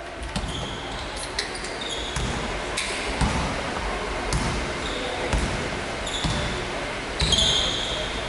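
Basketball being dribbled on a hardwood gym floor, a series of low bounces, with short high squeaks of sneakers on the court, thickest near the end. The sounds carry the echo of a large sports hall.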